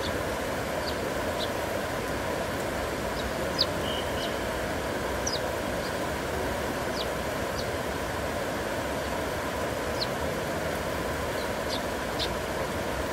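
Heavy rain falling as a steady, even hiss, with scattered faint, sharp ticks.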